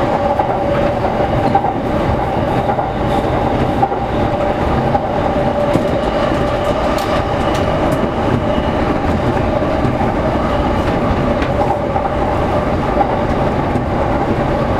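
Electric commuter train running along the track, heard from inside the driver's cab: a steady running noise with a constant two-note hum.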